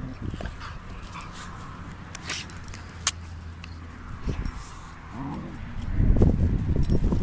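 Two dogs play-fighting, growling and whining at each other. The growling gets much louder about six seconds in.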